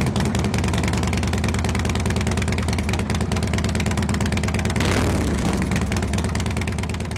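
Motorcycle engines running steadily at idle, a dense low rumble of rapid firing pulses, with music mixed underneath.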